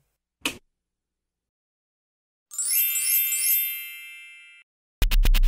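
A brief click, then a bright chime jingle of many high bell-like tones that rings out and fades over about two seconds. Electronic music with a regular beat starts near the end.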